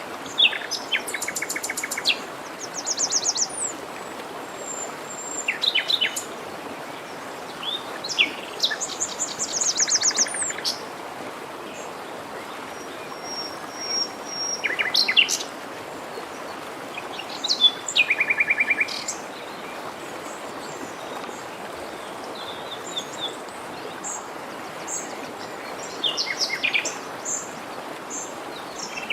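Several songbirds singing, with rapid trills of evenly repeated notes and short chirps every few seconds, over the steady rush of a forest stream.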